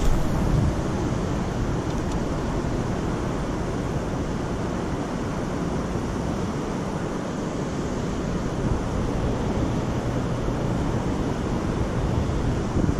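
Wind buffeting the microphone: a steady rushing noise with a deep rumble.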